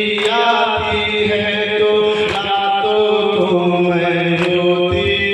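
Male voices chanting a noha, an Urdu mourning lament, through a loudspeaker in long held notes. Sharp slaps come about every two seconds from the chest-beating (matam) of the men keeping time.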